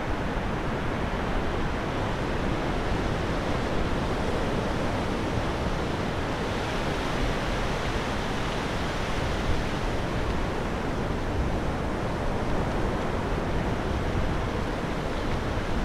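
Surf washing up a flat sandy beach: a steady rush of small breaking waves and foam.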